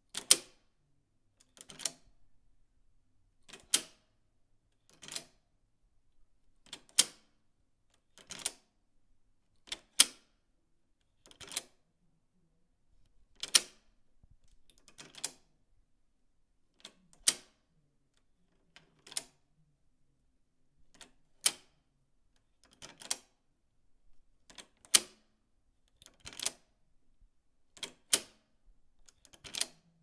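A key turning in a door's lock, the bolt clicking over in a sharp metal click. It repeats about eighteen times, one every one and a half to two seconds, each click with a softer rattle of the key just before it.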